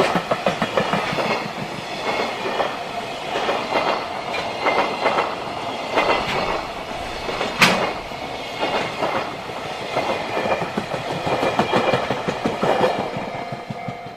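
JR Freight freight train's wagons rolling past, their wheels clicking over the rail joints in a steady rhythm, with one sharp bang about halfway through. The train noise dies down near the end.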